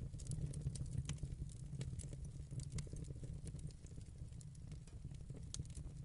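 Wood fire burning, with irregular sharp crackles and pops over a low, steady rumble.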